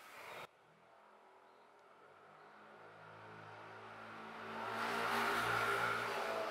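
A motor vehicle passing nearby: its engine hum and tyre noise swell steadily over several seconds and are loudest near the end.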